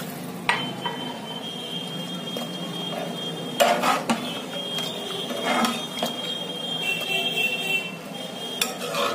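A steel ladle stirring meat pieces and masala in a pressure cooker pot, scraping and clinking against the metal a few times, the loudest about three and a half seconds in.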